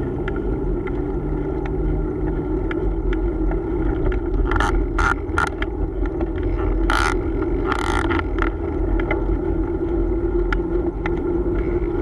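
Steady rumble of road and traffic heard from a moving bicycle on a city street, with light rattling ticks throughout. A few short, loud hissing bursts come about halfway through.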